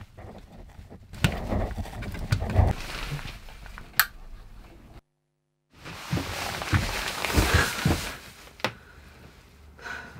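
Scattered knocks, sharp clicks and rustling, cutting out completely for a moment about halfway.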